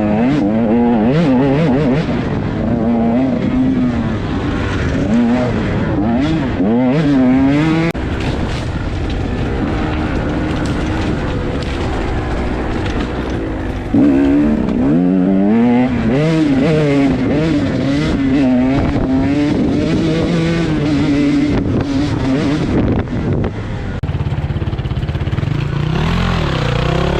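KTM 150 two-stroke dirt bike engine at racing revs, its pitch climbing and dropping again and again as the throttle is opened and shut through the gears.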